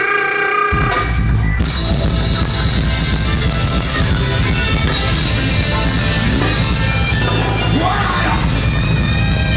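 Amplified band music, guitar over bass and drums, played loud through a PA. The heavy low end comes in under a second in.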